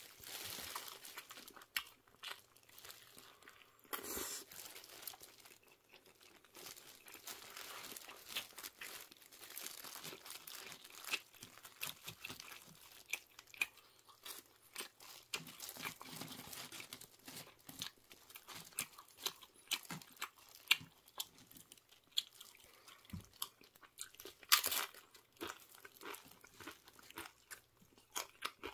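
Chewing and crunching of food, with bursts of paper and plastic crinkling as the wrapped burrito and a plastic-gloved hand are handled.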